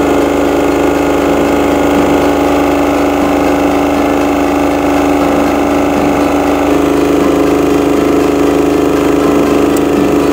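Matsumoto MDG-20 SSE silent generator's air-cooled two-cylinder 1247 cc direct-injection diesel engine running steadily with no load on it, its output reading about 52 Hz. Its tone shifts slightly about seven seconds in.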